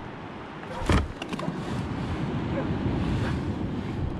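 Wind buffeting the microphone, a steady low rushing noise that builds after a sharp knock about a second in.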